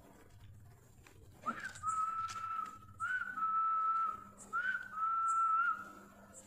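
A person whistling three long, level notes, each starting with a short upward slide, to call street dogs to their food.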